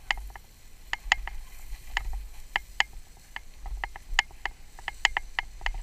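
Irregular sharp clicking and ticking, several clicks a second, over a low rumble.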